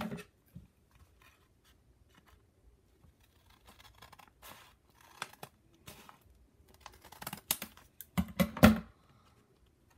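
Scissors cutting through a paper bag along its top edge: a run of short snips and paper rustles, with a cluster of louder knocks near the end.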